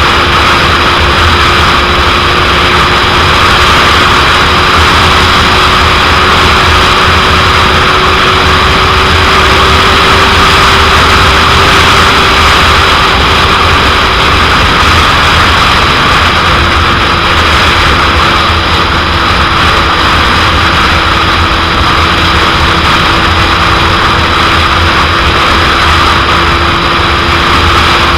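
Heavy wind noise rushing over the microphone of a 2001 Suzuki GSX-R750 at riding speed, with the bike's inline-four engine holding a steady note underneath. The engine note drops out about halfway through and returns a couple of seconds later, a little lower.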